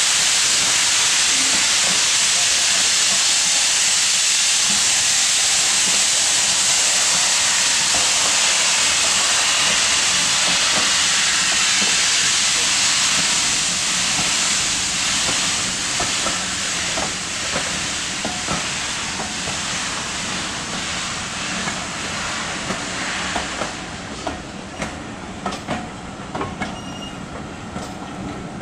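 Departing steam-hauled passenger train led by rebuilt Battle of Britain class 34053 Sir Keith Park: a loud steady hiss of steam for the first half, fading from about halfway, then the coach wheels clicking over the rail joints about once a second as the carriages roll past.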